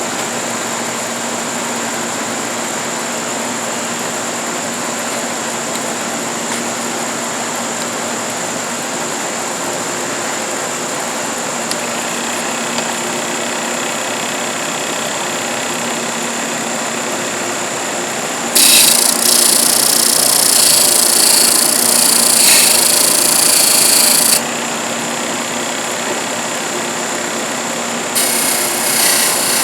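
Parkside PTSB 140 B3 bench-top disc sander running steadily with a thin high whine. Twice, wood is pressed to the spinning disc and sanded, a loud rough scraping: for about six seconds from a little past halfway, then again near the end.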